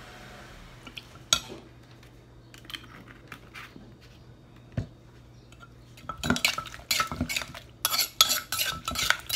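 A metal spoon clinking and scraping against a som tam mortar with a wooden pestle while the dressing is mixed. A few separate knocks and clicks come first, then a quick run of clinks in the last three seconds.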